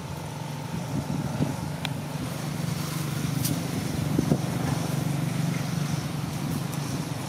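A steady, low engine hum, with a couple of faint clicks.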